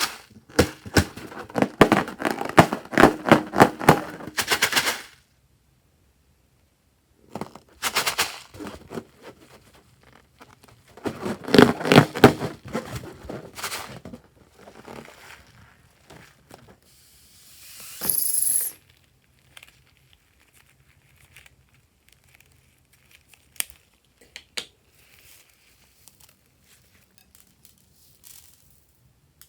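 Slime being squished and worked, giving bursts of sticky crackling and popping clicks, with a short hiss about two-thirds of the way through.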